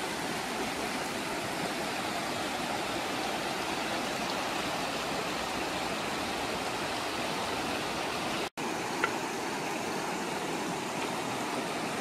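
River water rushing steadily. The sound drops out for an instant about eight and a half seconds in, and a brief sharp click follows just after.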